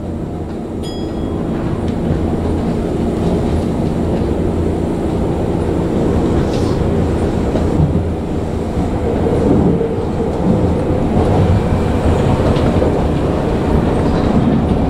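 Tokyu 9000 series electric train running along the track, heard from inside the front car: a steady rumble of wheels and motors that grows a little louder over the first couple of seconds, then holds.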